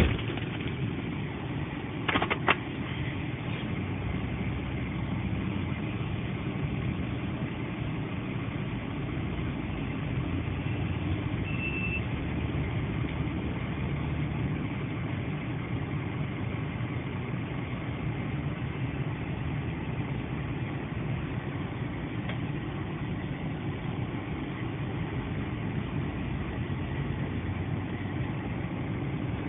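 Vehicle engine idling steadily, with two or three sharp clicks about two seconds in.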